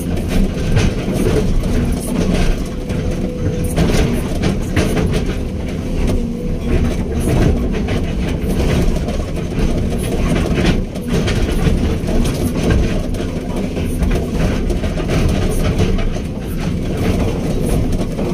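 Hydraulic excavator's diesel engine running steadily under load, with a continual clatter and rattling of the machine working.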